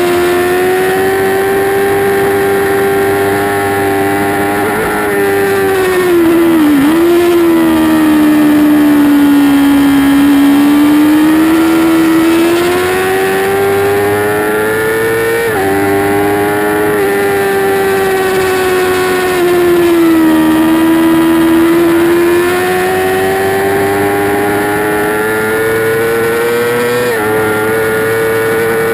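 2008 Yamaha R6's inline-four engine under racing throttle, heard onboard with wind rush. The revs climb steadily and break with sharp drops at gear changes about halfway and near the end. There is a quick dip and recovery about seven seconds in, and the revs sag for a few seconds past the middle as the bike slows.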